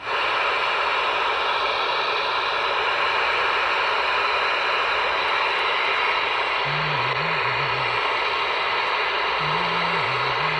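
Steady hiss of receiver static from a Galaxy DX-98VHP radio's speaker with the squelch open, listening on a channel where no station is answering. Faint low warbling tones come through twice in the second half.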